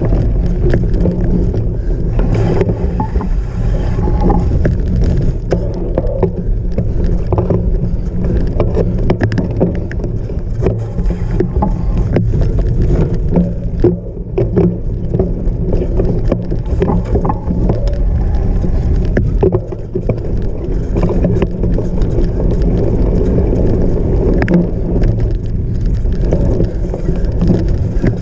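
Steady rumble of wind and rough ground on a camera riding with a cyclocross bike, with many small rattling clicks scattered throughout.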